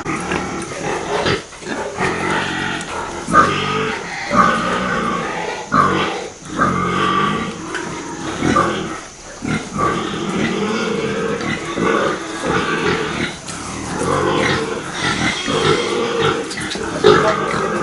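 Several pigs grunting over and over, irregularly, as they feed together at a trough.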